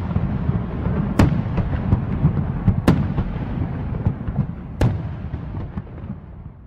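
Aerial fireworks going off: three sharp bangs, a second or two apart, over a continuous low rumble and crackle. The sound fades away over the last couple of seconds.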